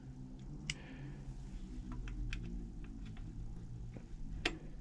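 Scattered light clicks and ticks of small mechanical-pencil kit parts being handled and fitted together, with a sharper click near the start and another near the end, over a faint steady hum.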